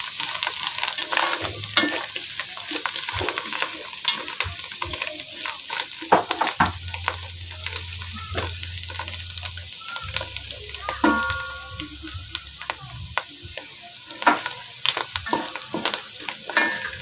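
Sliced button mushrooms sizzling as they fry in a pot, stirred with a wooden spatula that knocks and scrapes against the pot in frequent sharp clicks.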